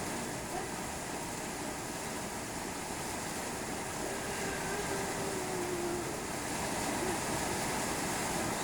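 Strong wind with rain: a steady rushing noise.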